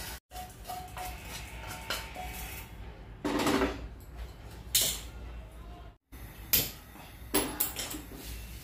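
Cookware clatter: a wooden spatula scraping a frying pan and the pan being set down on a gas stove grate, heard as a few separate knocks and clinks.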